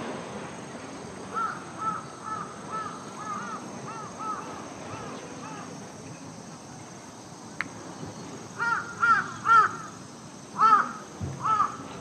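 A crow cawing over and over in runs of short calls, fainter at first and louder in the second half. A single sharp click comes about seven and a half seconds in.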